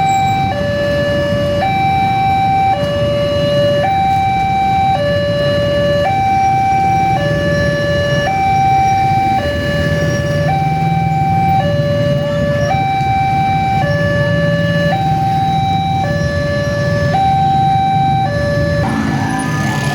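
Railway level-crossing gate alarm sounding a steady two-tone high-low signal, switching pitch about once a second, warning that a train is approaching and the barrier is closing.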